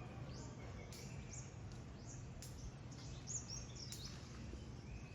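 Birds chirping outdoors: short high calls repeating every second or so, over a steady low background rumble.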